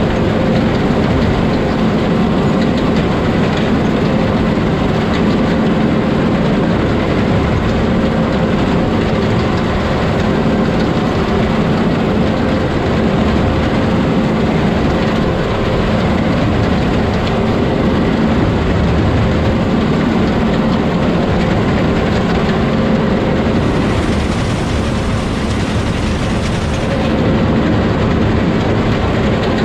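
A heavy vehicle's engine running steadily and loud with an even hum, with a brief higher hiss about three-quarters of the way through.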